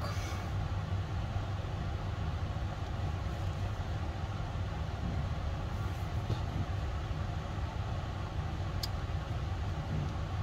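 Steady low background rumble with a faint hiss, and one short click about nine seconds in.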